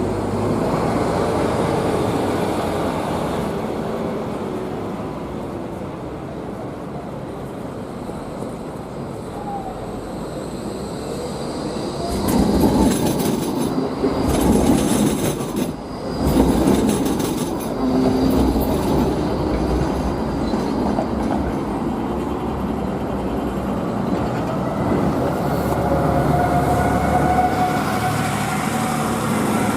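Five-section Albatross tram running on street track, a steady rumble with wheels clattering over rail joints and a brief high wheel squeal about halfway through, loudest there. Near the end a rising whine comes in as it gathers speed.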